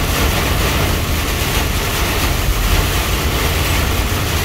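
Heavy rain beating on a moving truck's windshield and cab, mixed with steady road and engine noise, heard from inside the cab.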